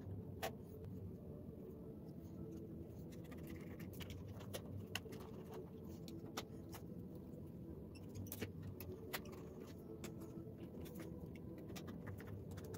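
Scattered small metallic clicks and taps of a flat screwdriver working the screws and bottom cover of a ThinkPad T470s laptop, over a low steady hum.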